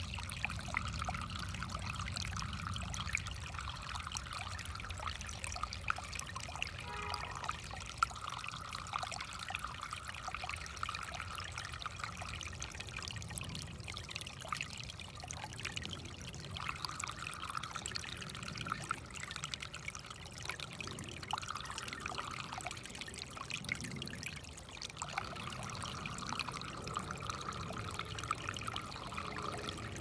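A shallow creek trickling and splashing over a small drop between rocks: a steady flow with many small splashes, swelling and easing every few seconds.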